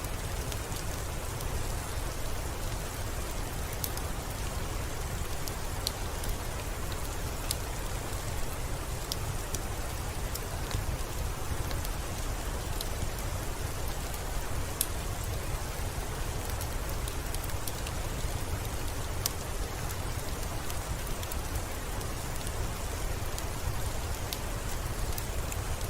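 Steady rain over a low rumble, with sparse, irregular sharp crackles of a wood fire.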